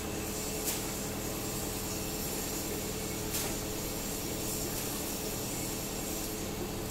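Bucket truck's engine running steadily, a constant hum, with two faint clicks, one about a second in and one near the middle.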